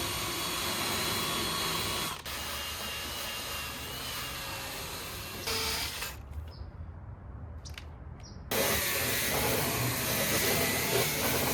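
Cordless drill spinning a bristle brush attachment against unpainted plastic body cladding, scrubbing off the white oxidation. It runs for about six seconds, drops away for a couple of seconds with a few clicks, and starts up again.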